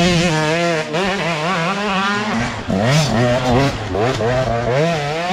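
Enduro motorcycle engines revving hard, one bike after another, the pitch rising and falling quickly as the riders work the throttle on loose forest ground. A second engine rises in about three seconds in.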